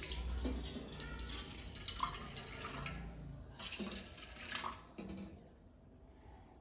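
Water poured from a glass into a stainless steel pot, splashing into the water already in it. The pouring stops about five seconds in.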